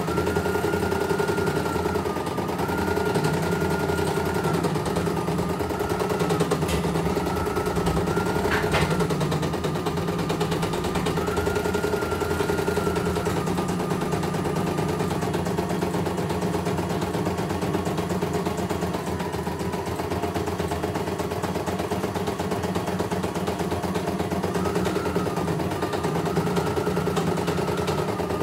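CNY E900 computerized embroidery machine stitching a test design: a fast, steady needle clatter over a motor whine that steps up and down in pitch now and then, with one sharp click about nine seconds in.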